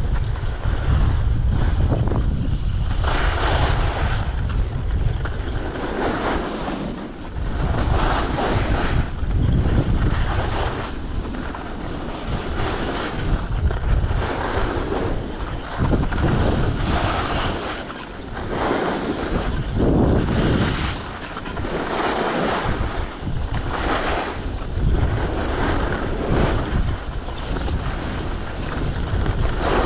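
Skis hissing and scraping on packed, chopped-up snow, swelling and fading every second or two, under steady wind noise on the microphone from skiing downhill.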